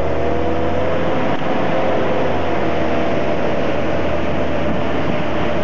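Motorboat engine running at a steady speed, over a constant haze of wind and water noise.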